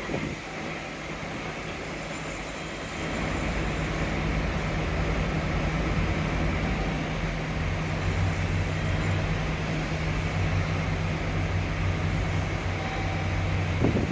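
Train running at a station platform: a steady low hum and rumble that grows louder about three seconds in.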